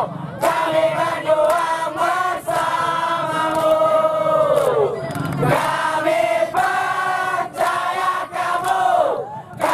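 Crowd of football supporters singing a chant in unison, in long phrases whose pitch falls away at their ends.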